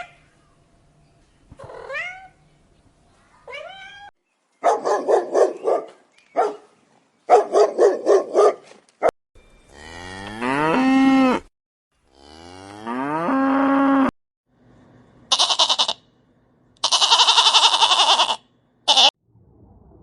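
A sequence of animal calls: a domestic cat meowing three times in short rising calls, then a dog barking in quick bursts, then a cow mooing twice in long low calls, then a goat bleating three times near the end.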